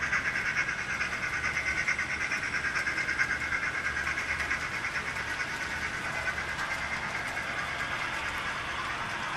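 Model steam-locomotive-hauled train running on a model railroad layout: a steady whirring of motor, gears and wheels on track with a rapid, even clicking. The sound cuts off abruptly at the very end.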